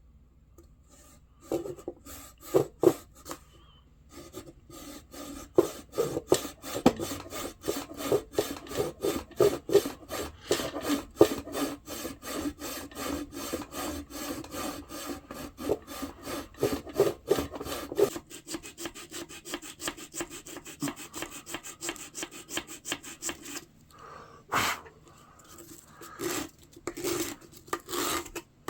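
Rapid back-and-forth strokes of a hand tool scraping a small piece of wood, about four strokes a second, as a wooden knife handle scale is cut and shaped; the strokes soften partway through and become sparse near the end.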